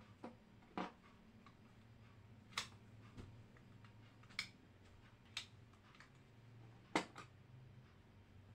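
Sharp plastic clicks and taps, about six spread irregularly, as an empty roll-on deodorant bottle is handled and cut with a utility knife. Faint, over a low steady hum.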